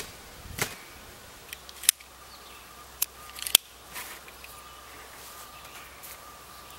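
Paracord being handled and pulled around a trampoline's metal spring triangles, with a few sharp clicks and snaps, the loudest about three and a half seconds in.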